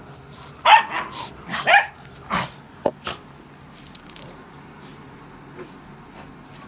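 Dog barking: three barks about a second apart in the first two and a half seconds, followed by a couple of sharp clicks.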